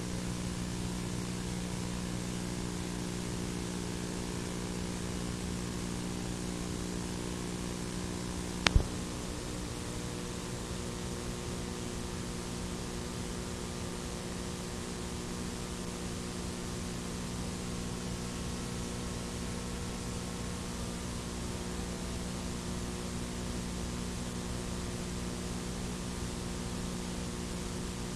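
Steady electrical hum and hiss from the tape transfer, with no game sound on the track, broken once by a sharp click about nine seconds in.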